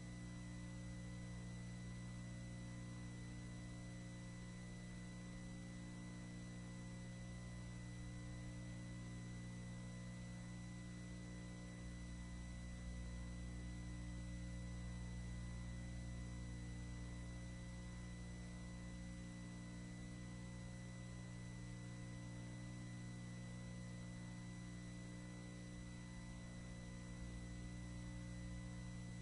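Steady low electrical mains hum with a faint hiss and a thin, steady high-pitched tone over it.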